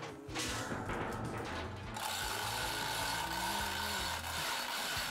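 Manual chain hoist clicking on its ratchet while its chain is pulled by hand, drawing a new steel hull plate into place.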